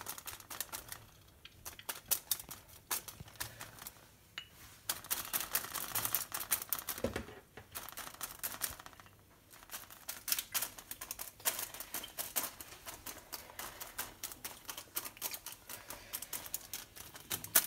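Quick, irregular light tapping and rustling as vegetable oil is dabbed onto spiced beef skewers lying on baking paper over foil, with a few brief pauses.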